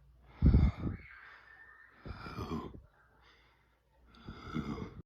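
A person's loud breathing sounds, three bursts, the first the loudest.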